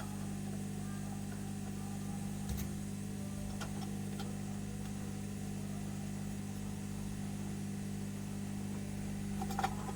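Steady low hum of a small electric motor or fan running on the soldering bench, with a few light taps, the clearest about two and a half seconds in and another near the end.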